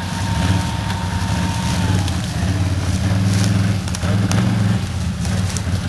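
Quad bike (ATV) engine revving under load, rising and falling unevenly, as the stuck machine is driven and pushed through thick bracken.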